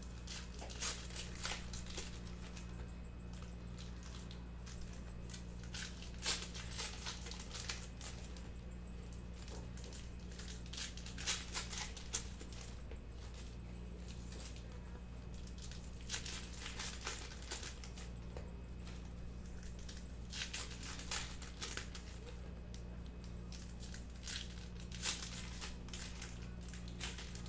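Packs of 2021 Topps Gypsy Queen baseball cards being torn open and their wrappers crinkled, in short bursts every few seconds, over a steady low hum.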